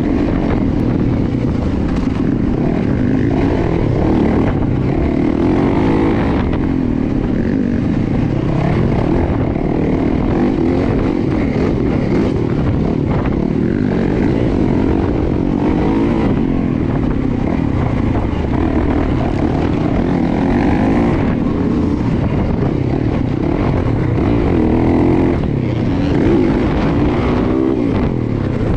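Yamaha dirt bike engine heard from on board while it is ridden hard, its note rising and falling continuously with throttle and gear changes.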